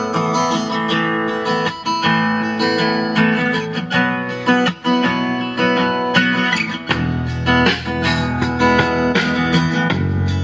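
Strummed acoustic-guitar music played through a PAM8403 mini amplifier board driving a bare oval car speaker. The bass grows fuller about seven seconds in.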